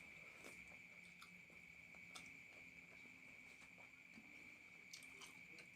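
Faint eating sounds, soft chewing and mouth clicks with a few sharper clicks, over a steady faint high-pitched tone.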